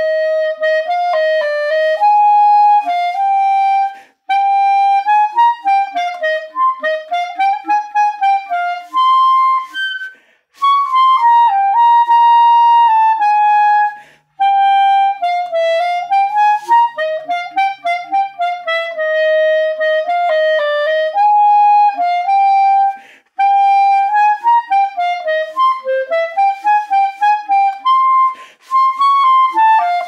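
Backun Alpha plastic clarinet with its standard plastic barrel and bell, played solo: a flowing melody of quick notes, broken by a few brief pauses.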